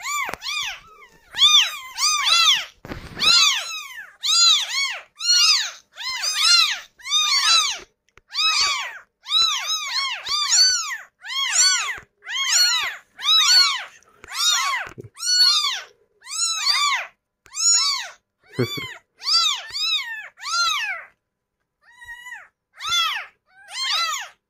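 Several newborn kittens, eyes not yet open, crying in a steady stream of high-pitched meows, each call rising and falling, about one or two a second: the cries of tiny kittens left by their mother. A soft thump about three seconds in.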